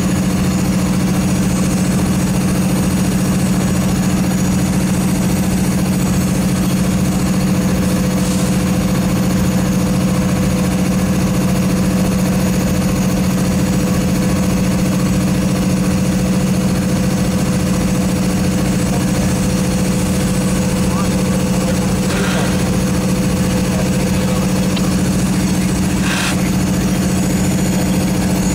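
Diesel freight locomotive idling, a loud steady hum with unchanging tones.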